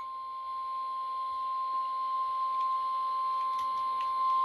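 Emergency Alert System attention signal: a steady, single-pitch tone held without a break, of the kind used as the National Weather Service's 1050 Hz warning alarm tone, announcing a severe thunderstorm warning.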